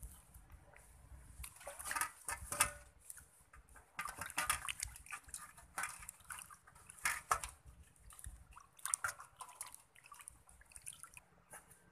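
Water splashing and sloshing in an aluminium basin as hands rub and turn a piece of raw beef to wash it, in irregular bursts.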